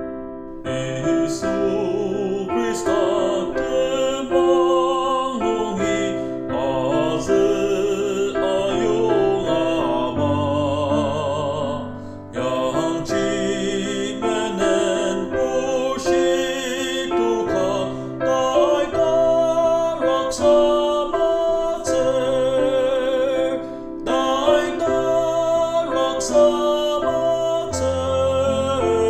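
Music: a singing voice with vibrato over keyboard accompaniment, in the manner of a hymn.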